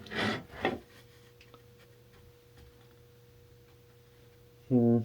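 A few quick rustling, scraping handling noises, then a quiet workshop with a steady electrical hum. A man starts humming a held note near the end.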